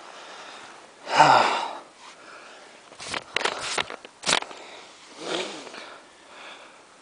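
Snow crunching and scraping as hands dig through it inside a tyre, with a few sharp scrapes about three to four seconds in. About a second in comes a loud breathy exhale, the loudest sound.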